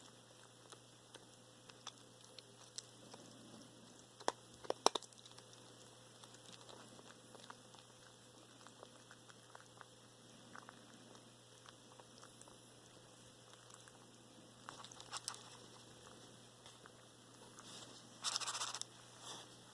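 Russian blue cat chewing its food with faint, irregular clicks and crunches, including a quick cluster of sharp clicks about a quarter of the way in and a short noisy burst near the end. These are the strange chewing noises its owner links to the cat's poor appetite; a teeth cleaning did not stop them.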